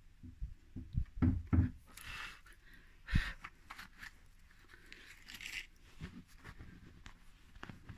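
Close handling noise: a run of soft knocks and rubbing, brief hissing rushes around two and five seconds in, and a sharper knock about three seconds in.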